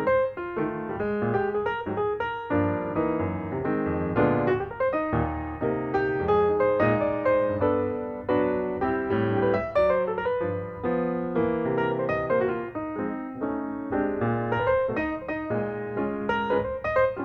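Background piano music: a steady run of quickly played notes, lively throughout.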